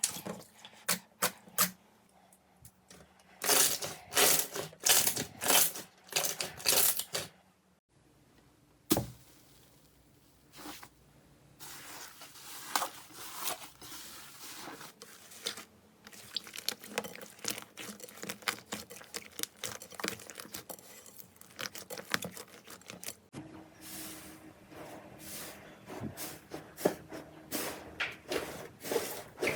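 Slime being squeezed and pressed by hand: a run of sharp crackling pops, then denser sticky crackling and squishing, changing abruptly about eight seconds in and again near the end as one clip gives way to the next.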